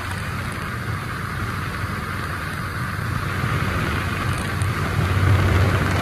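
Light aircraft in flight heard from inside the cabin: a steady low engine drone under rushing air, growing a little louder near the end.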